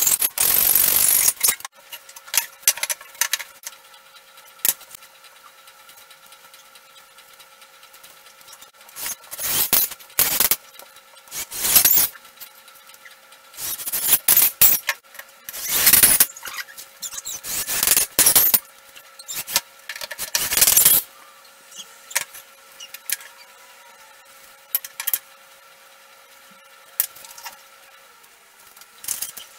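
A hacksaw cutting through a wooden board for the first second or so. After a pause, a cordless drill-driver drives screws into wooden bench slats in a run of short bursts, each a second or two long.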